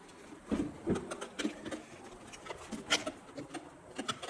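Light plastic clicks and knocks as the trimmer head's spool and cover are handled and snapped back onto the Makita 18V string trimmer, the sharpest click about three seconds in.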